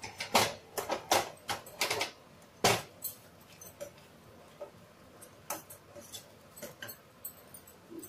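Metal kitchen utensils clicking and tapping: a flat steel spatula knocking against a steel frying pan. Sharp clicks come quickly in the first three seconds, and lighter ticks follow.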